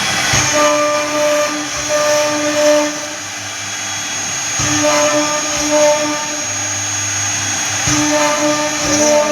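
CNC router carving wood: steady whirring from the spindle, with motor tones that start and stop every half second to a second as the machine moves.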